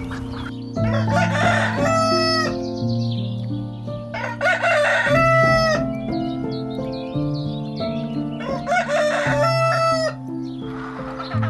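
Rooster crowing three times, each crow a long call of a second or more, over background music.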